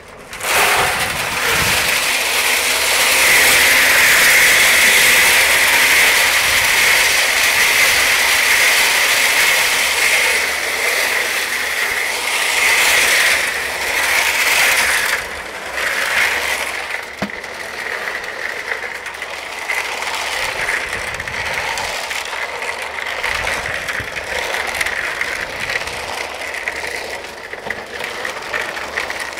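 Tractor PTO-driven concrete mixer drum turning with gravel tumbling and rattling inside it, over the tractor engine running. A loud hiss of water and material going into the drum dominates the first half and eases about halfway through, leaving the steady rattle of the turning load.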